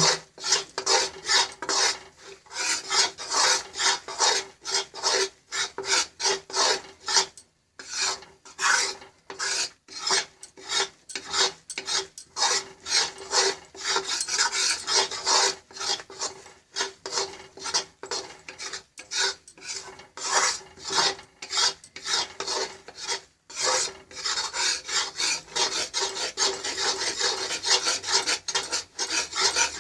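A spatula scraping and stirring gram flour roasting in ghee in a kadhai, in quick repeated strokes about two a second. This is the stage where the besan is being roasted over a low flame until it turns light golden.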